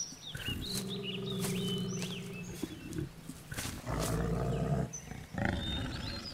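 A sleeping brown bear snoring in long, low breaths: one lasting about two and a half seconds, then two shorter ones later on. Short high chirps are heard over it.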